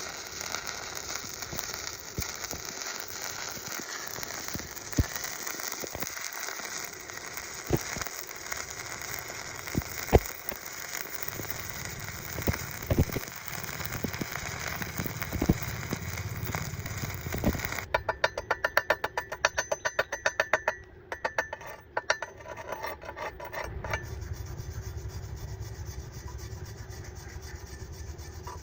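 Electric arc welding: a steady frying hiss with scattered sharp pops and crackles. About two-thirds of the way through it stops and a fast, even run of ticks follows for several seconds, then a low steady hum.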